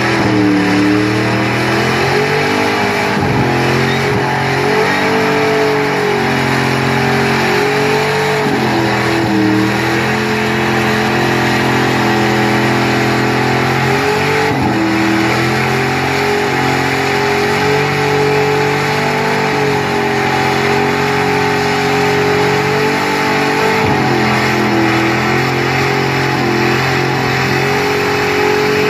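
A car's engine held at high revs through a long burnout, the revs dropping briefly and climbing back several times, over the steady rush of the spinning rear tyres.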